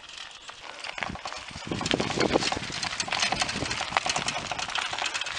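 Recumbent trike tyres and a trotting dog's paws crunching over a gravel road, a dense rapid patter that grows louder about two seconds in as they pass close by.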